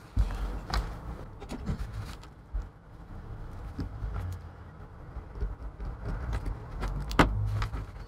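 Handling noise from a plastic MacBook charger case being squeezed together, turned over and set down on a desk: scattered clicks and knocks over a low rumble, with a sharp click about seven seconds in.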